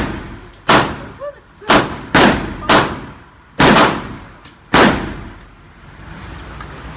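Gunshots at a shooting range: about six sharp reports, unevenly spaced, in the first five seconds, each with a short echoing tail, then the firing stops.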